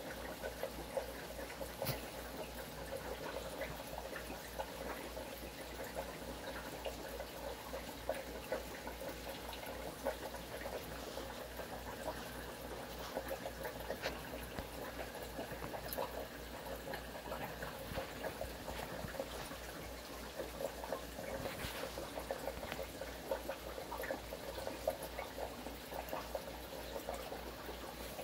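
Aquarium water trickling and bubbling steadily, with many small pops scattered through it and a low hum underneath.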